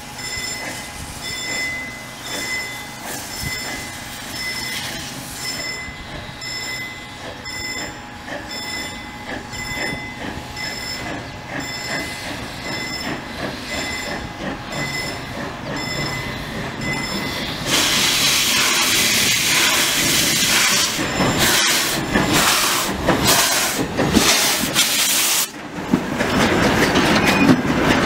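Steam tank locomotive approaching with a train of coaches, running over a low rumble to a regular high pinging, then passing close with a loud rush of steam hiss from about two-thirds of the way in, mixed with chuffs and the clatter of wheels and coaches going by.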